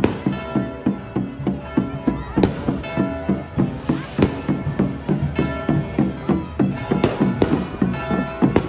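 Festive band music with a steady quick beat and held notes, with a few sharp cracks standing out over it.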